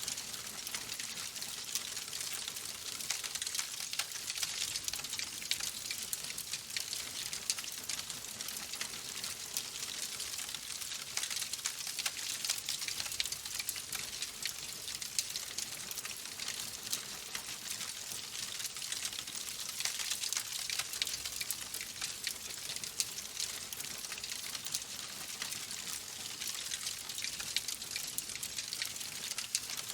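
Log fire in a fireplace crackling: a dense, continuous stream of small pops and snaps over a steady hiss, with an occasional louder snap.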